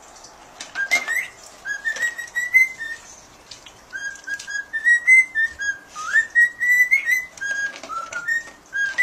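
A cockatiel whistling a quick run of short notes, several sliding upward, over the crunching clicks of a dog eating dry kibble from a bowl.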